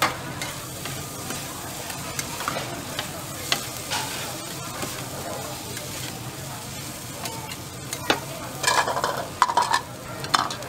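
Stir-fried noodles sizzling on a steel flat-top griddle while metal spatulas scrape and turn them, with a quick run of louder scrapes near the end.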